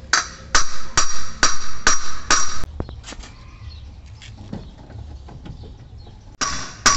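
Hammer blows on the rear wheel and axle end of a VW Kombi: six ringing metal strikes about two a second, then a quiet pause, then two more near the end. The blows seat the wheel firmly as a makeshift repair after the axle nut worked loose and the wheel came off.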